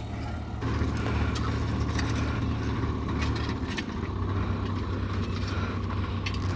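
Diesel tractor engine running steadily, with a few short clicks over it.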